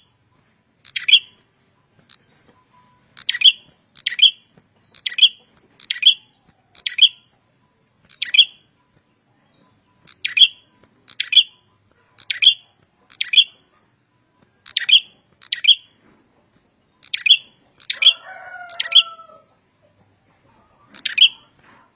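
A prenjak kepala merah, a small songbird, calls persistently with sharp, short chirps, mostly in quick doubled notes, repeated about once a second. Near the end a lower, gliding squeaky sound overlaps one call.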